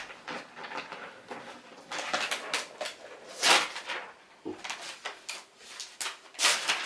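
Handling noises: a string of short rustling swishes and light knocks as a laptop and its packaging are moved about by hand, the loudest about three and a half seconds in.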